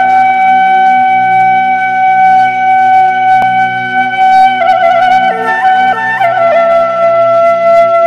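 Background music: a woodwind melody of long held notes with brief trills, stepping down about six seconds in, over a steady low drone.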